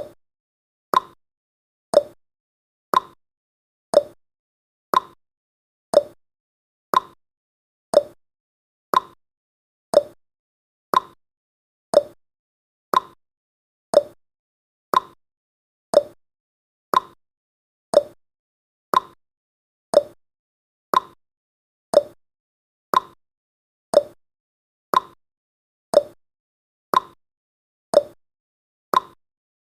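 Countdown timer's ticking sound effect: one short, sharp tick every second, evenly spaced, with silence between the ticks.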